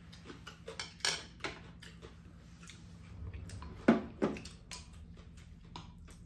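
Chopsticks and spoons clicking and knocking against ceramic soup bowls while eating. The sharp clicks are scattered irregularly, with a few louder knocks, the loudest about four seconds in.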